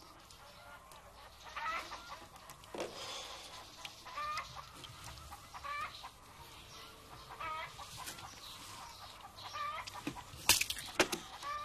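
Hens clucking in short, repeated calls, with a few sharp knocks near the end.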